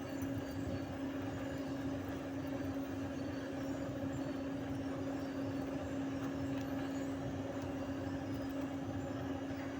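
Steady machine hum with one constant low tone and a fainter tone above it, unchanging throughout.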